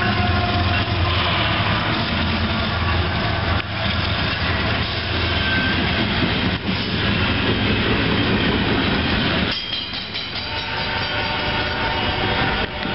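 A Union Pacific diesel-hauled freight train passing close by: the locomotives' engines drone low at first, then the cars roll past with a steady rumble and wheel noise. From about ten seconds in, a steady tone with several pitches sounds over the rumble.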